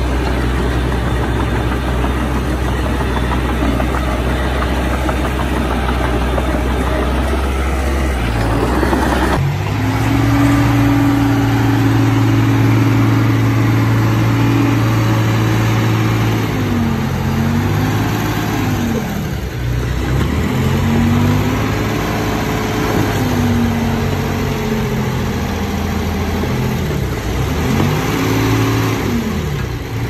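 Heavy diesel engine of earthmoving machinery running steadily at a low pitch; after a cut about nine seconds in, an engine holds a steady higher pitch and then dips and rises in speed again and again, as under changing load.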